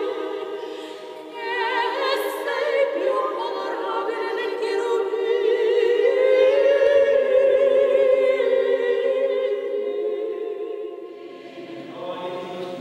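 Church choir singing a Byzantine liturgical hymn unaccompanied, in long sustained chords with vibrato that swell through the middle. The singing fades near the end as a single lower voice begins.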